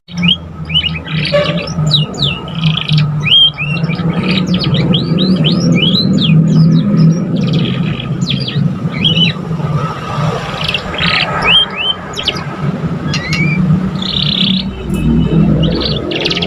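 Young domestic canary singing a rambling practice song: many short rising and falling chirps, with fast trills near the end, over a steady low hum.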